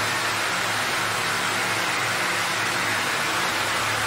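Steady hiss of steam jetting from a Steamist steam head into a steam shower, with a faint low hum underneath.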